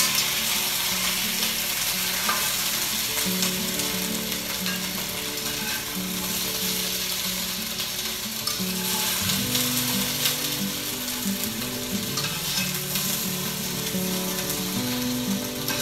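Potato chunks sizzling steadily as they brown in hot olive oil in an enameled cast-iron Dutch oven, with occasional light taps and scrapes of the utensil turning and lifting them.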